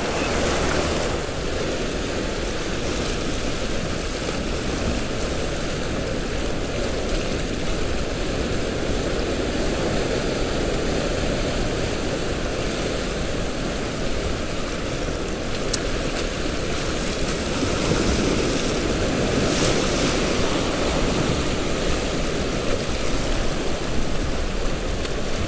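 Sea surf washing and breaking over shoreline rocks, a steady rush of water, with wind buffeting the microphone. It swells slightly louder about two-thirds of the way through.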